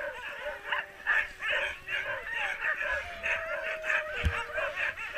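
A team of sled dogs barking and yipping over one another without a break, with long drawn-out whines among them. A dull thump about four seconds in.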